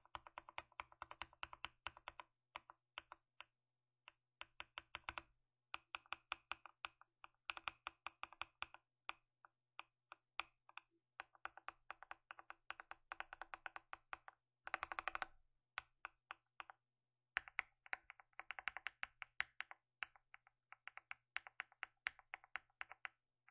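Mechanical keyboard switches sound-tested by typing: rapid key clicks and clacks in bursts, with short pauses and a denser flurry of strokes about halfway through.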